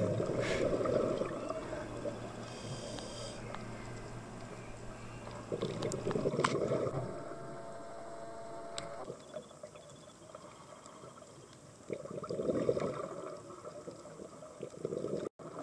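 Muffled underwater sound heard through a camera housing: a low rush of water that swells into gurgling surges every six seconds or so, from a scuba diver breathing out bubbles through a regulator.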